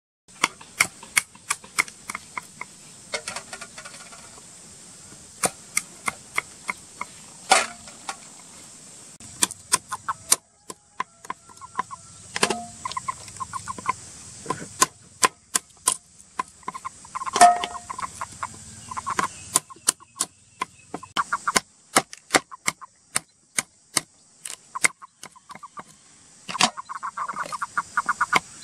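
Cleaver chopping through snail shells on a wooden chopping board: many sharp, irregular chops, a few close together and then pauses. Chickens cluck in short bursts in between, several times.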